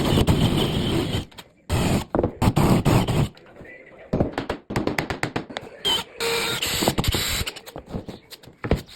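Woodworking shop noise: two loud bursts of noise over a second long each, then a run of knocks and clicks as wood and a jig are handled.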